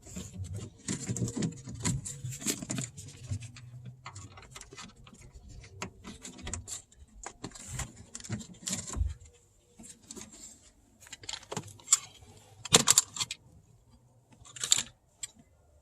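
Irregular small clicks, rattles and rustles of hands feeding speaker cables and connectors through a car door panel, with a sharper cluster of clicks near the end.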